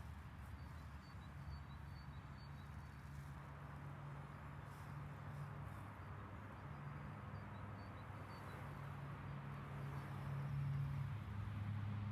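Faint, steady low hum of a distant motor, growing somewhat louder toward the end, with a few faint bird chirps.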